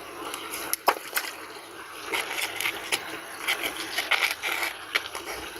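Steady rush of flowing water, with a scatter of sharp knocks and clicks over it.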